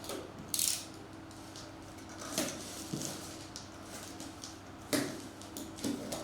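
Desk handling sounds: a brief rustle just after the start, then a few scattered sharp clicks and knocks over a low steady hum.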